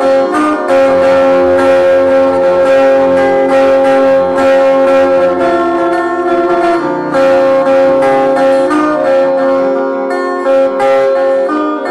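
Acoustic guitar played solo in an instrumental passage: a steady stream of picked notes that ring on over held chords, thinning out near the end.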